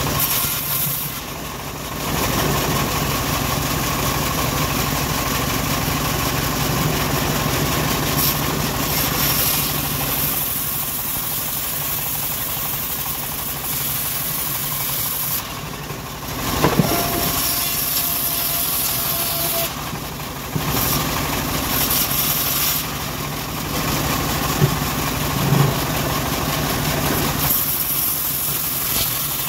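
Homemade sawmill bandsaw running under a steady machine hum while ripping a teak plank lengthwise, the high hiss of the cut dropping out briefly a few times. A couple of short knocks, one about halfway through and one later.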